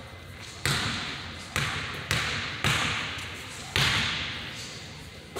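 Basketball bouncing on a hardwood gym floor: five separate thuds at uneven intervals, each echoing in the large hall.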